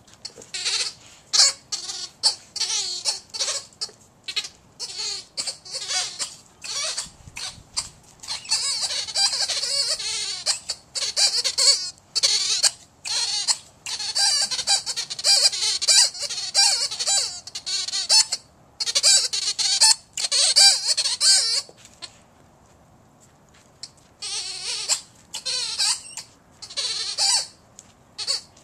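Squeaky rubber ball toy squeaking over and over as a dog chomps on it: rapid runs of high squeals broken by short pauses, with a longer break of about two seconds near the end.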